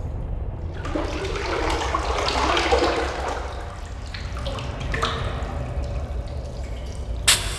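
Underwater habitat ambience sound effect: water bubbling and gurgling over a steady low rumble, swelling about a second in and fading after a few seconds, with a sharp click near the end.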